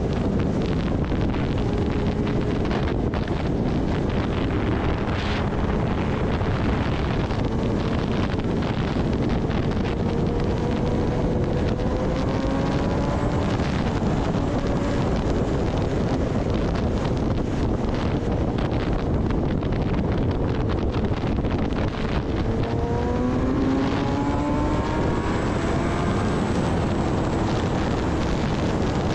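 Kawasaki Ninja ZX-10R's inline-four engine running at highway speed, largely buried under heavy wind rush on the microphone. The engine's pitch climbs slowly under acceleration twice, a little before the middle and again in the last third.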